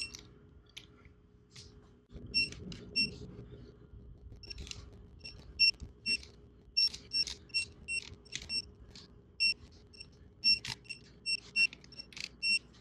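Digital torque wrench tightening bolts: a string of short, high beeps, its torque signal, repeating through the tightening strokes, with ratchet clicks between them.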